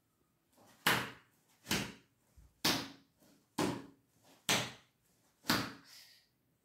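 Six sharp strikes, evenly spaced about a second apart, each dying away quickly.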